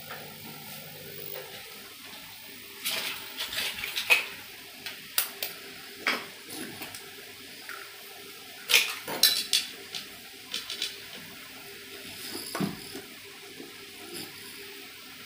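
Stainless steel dog bowl clinking and scraping against its steel dish on a stone floor while the food in it is handled and mixed by hand. The sharp clinks come in short clusters, with the loudest bunches about three seconds in and around nine seconds.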